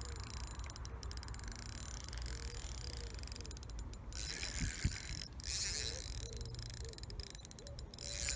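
Fishing reel ticking in rapid bursts of clicks while a hooked carp is being played.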